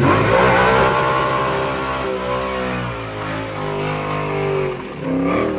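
Coyote-swapped Mustang's Gen 1 5.0 V8, taken from an F-150, revving hard through a burnout while the rear tyres spin. The revs fall, climb again and drop near the end.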